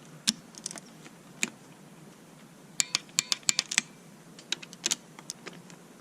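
Click-type torque wrench on the EGR valve bolts: a couple of single clicks, then a quick run of ratcheting clicks a few seconds in and a few more near the end, as the bolts are checked at 124 inch-pounds.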